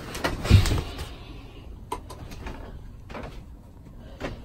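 A dull thump about half a second in, then a few faint knocks and clicks spaced about a second apart.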